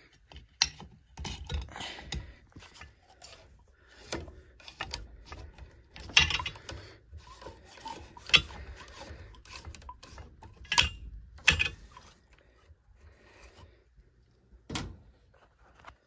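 Handling noise from PVC condensate drain pipe and fittings being worked by hand: irregular clicks, knocks and rubbing of plastic parts, sparser and quieter after about twelve seconds.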